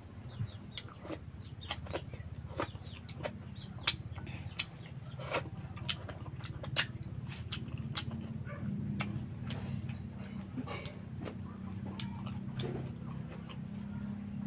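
Close-up eating sounds of a man eating rice by hand: irregular sharp mouth clicks and smacks from chewing, about one or two a second, over a low steady hum.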